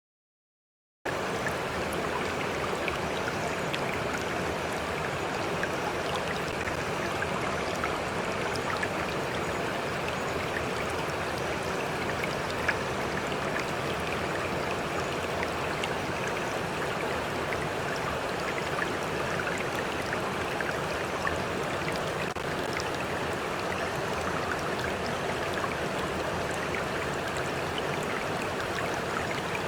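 Stream water running steadily over stones. It starts abruptly about a second in, out of silence, with small scattered ticks in the flow.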